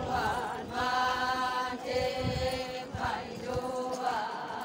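Group of voices chanting together in unison, a traditional Konyak Naga festival chant sung in held notes, phrase after phrase of about a second each with short breaks between.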